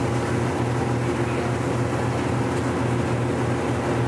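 Engine of the Queen Emeraldas water bus running steadily, heard from inside the boat as an even low hum.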